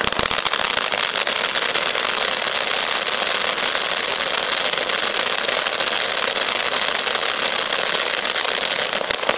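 Sky Bacon 'Star Factor' ground fountain firework in its crackling stage: a loud, dense crackle over the hiss of spraying sparks, which stops abruptly at the end.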